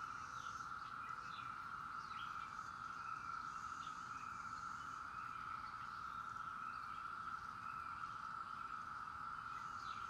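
Chorus of Brood X periodical cicadas (17-year cicadas): a steady, unbroken drone at an even pitch.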